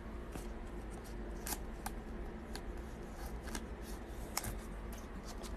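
Quiet handling of a chrome baseball card and a clear plastic top loader: a few light clicks and soft scraping over a faint low hum.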